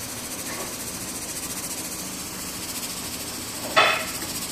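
Pot of sopas simmering on the stove with a steady hiss while a wooden spatula stirs it. A single sharp knock of the spatula against the pan near the end.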